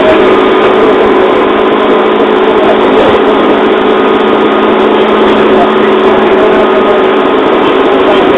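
JR 205 series electric train running at a steady speed, heard from inside the car: a continuous rumble of wheels on rail with a constant motor and gear hum that holds one pitch.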